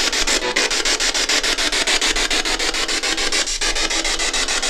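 Ghost box (spirit box) radio scanner sweeping through stations: continuous loud static, chopped into a fast even ticking about ten times a second as it jumps from frequency to frequency.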